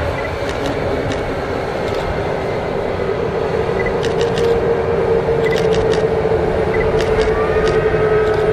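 Airbus A321neo's turbofan engines running as the jet rolls along the runway: a steady jet roar with a droning whine that grows louder through the second half, joined near the end by a higher whine rising slightly in pitch.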